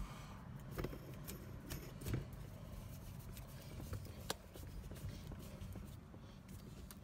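Faint clicks and rubbing as a chrome shift knob is screwed onto a manual gear shifter's threaded stalk, with a few sharper ticks about a second in, near two seconds and past four seconds, over a low steady rumble.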